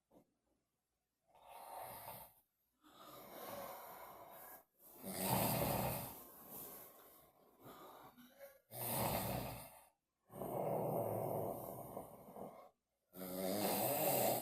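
An elderly man snoring: about six snoring breaths with short silent gaps between them, the loudest about five seconds in.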